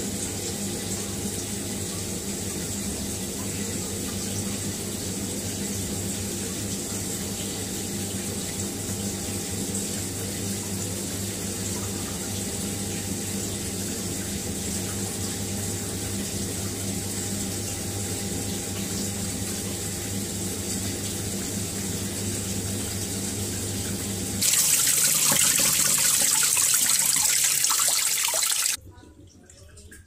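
Water trickling steadily out of a twin-tub washing machine's drain hose onto a tiled floor over a steady low hum: the machine leaks through its drain, which the owner suspects is a drain valve held open by dirt. About 24 seconds in the splashing becomes louder and brighter for a few seconds, then cuts off suddenly.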